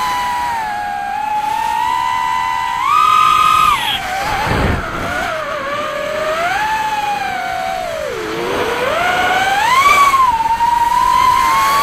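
Onboard sound of a stock Tyrant 180 FPV racing quadcopter on a 4S battery: its brushless motors and DAL 4-inch three-blade propellers whine, the pitch rising and falling with the throttle, dipping low about eight seconds in and climbing again near the end. About four and a half seconds in there is a brief rushing noise.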